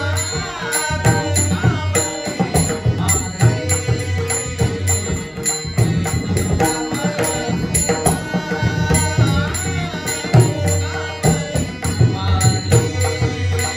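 Marathi devotional bhajan: a man sings a drawn-out, ornamented abhang melody. He is accompanied by pakhawaj drum strokes, small hand cymbals keeping a steady beat, and held drone-like tones.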